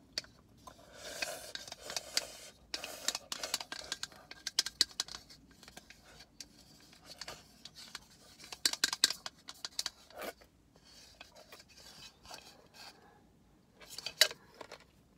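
Chopsticks clicking and scraping against a porcelain rice bowl as food is shovelled from the tipped-up bowl into the mouth, with the mouth noises of eating between the clicks. The clicks come irregularly and in quick clusters, a sharp one near the end.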